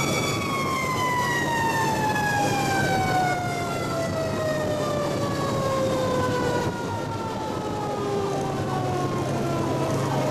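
Fire truck's mechanical siren, held at a high pitch and then winding slowly down over about six seconds, heard from inside the cab over a steady low hum.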